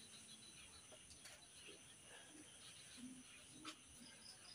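Faint crickets chirping steadily in a high, even pulse, with a couple of soft clicks.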